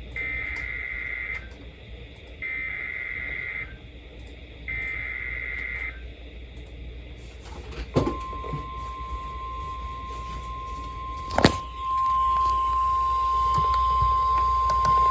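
Emergency Alert System SAME header: three identical bursts of buzzy digital data, each about a second long with a second's gap. After a pause, NOAA Weather Radio's warning alarm tone comes in, a steady single pitch, faint at first, then much louder after a sharp click about eleven and a half seconds in.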